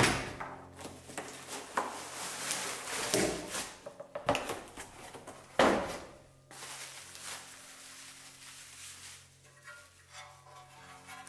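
Cardboard box and bubble wrap rustling and crinkling as a new black engine oil pan is unpacked by hand, with a sharp knock about five and a half seconds in. Soft piano music plays underneath.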